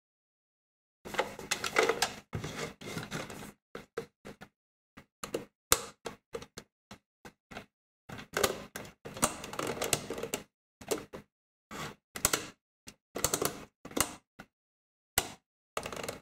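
Plastic BN-1-003 signal lanterns handled in both hands while their light modes are switched: an irregular run of clicks, taps and rattles of the plastic housings and switches, starting about a second in.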